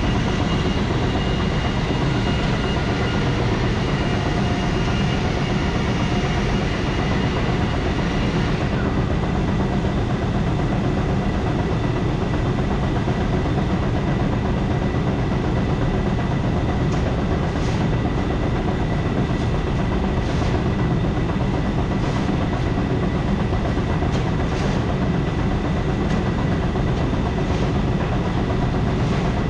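Grain auger running steadily, conveying soybeans out of the storage bin as it is emptied. A thin high whine drops out about nine seconds in.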